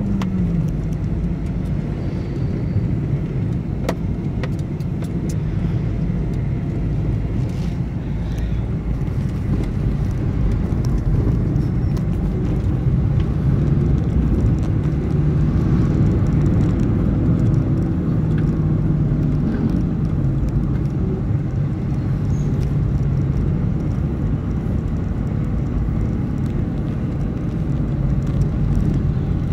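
A motor vehicle on the road: a steady low engine drone over road noise, the engine note shifting slightly now and then.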